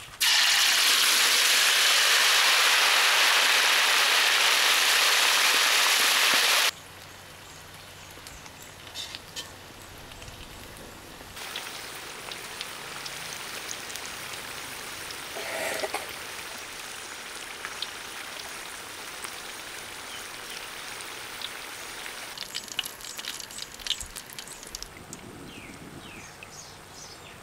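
Tarantulas, with garlic, chilli and spring onion, deep-frying in a wok of hot oil. A loud, dense sizzle in the first six seconds stops abruptly. Then comes a quieter, steady sizzle with scattered crackling pops.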